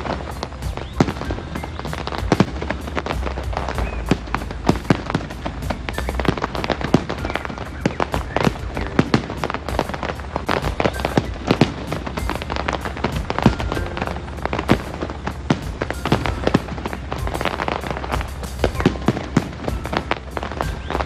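Aerial fireworks bursting in a dense, irregular run of sharp bangs and crackles over a steady low rumble.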